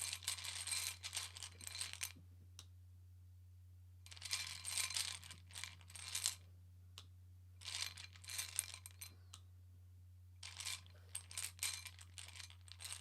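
Small metal charm tokens clinking and rattling together in four bursts with short pauses between, as they are stirred or rummaged through, over a steady low hum.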